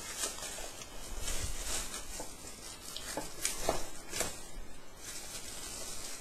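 Plastic wrapping crinkling and rustling as it is pulled off by hand, in short irregular crackles.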